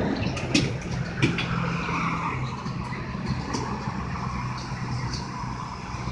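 Paratransit minibus engine idling with a steady low hum, with a few sharp clicks and knocks, most in the first couple of seconds.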